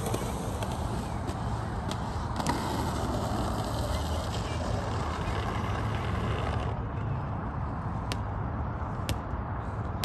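Steady outdoor background noise, a low rumble with a few faint clicks and taps scattered through it.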